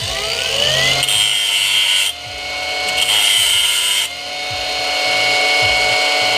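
Electric grinder spinning up with a rising whine, then running steadily while a stainless steel screw is pressed to it in two grinding bursts of about a second each. This is a spark test: the screw throws sparks, which marks it as stainless rather than brass.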